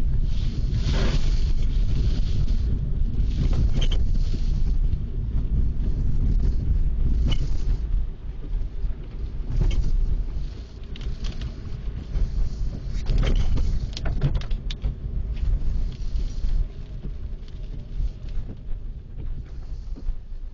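Car driving, heard from inside the cabin: a steady low road-and-engine rumble, with scattered short knocks and rustles over it.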